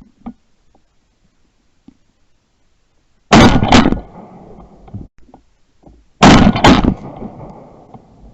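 Two shotgun shots about three seconds apart, each a loud blast with a second crack close behind it and a short echo dying away.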